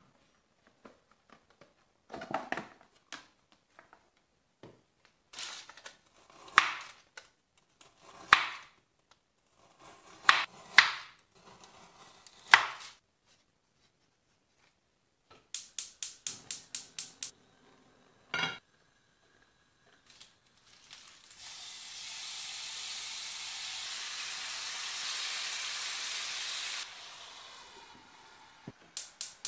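Kitchen cooking sounds: a series of sharp knocks and paper crinkling as food is handled and cut on parchment paper, then a quick run of about eight clicks from a gas hob's igniter and a single knock. After that, food sizzles steadily in a frying pan for about six seconds before cutting off suddenly.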